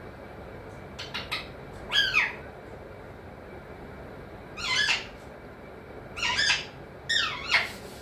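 Alexandrine parakeet giving about five short squawking calls, a second or two apart.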